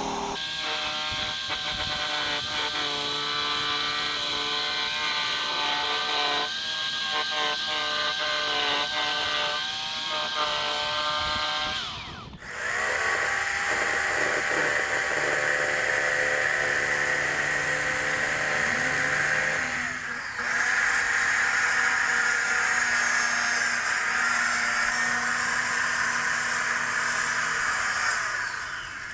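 Corded electric jigsaw cutting plywood, its motor whining with a few short breaks in the cut. In the last part, a circular saw cutting a long board.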